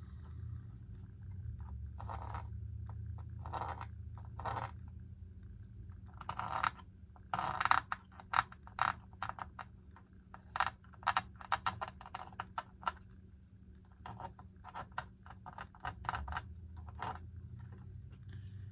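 A tracing tool scratching as it is drawn around a small signal base on a plastic model crossing-gate platform: short, quick strokes, a few at first, then in rapid irregular clusters. A steady low hum runs underneath.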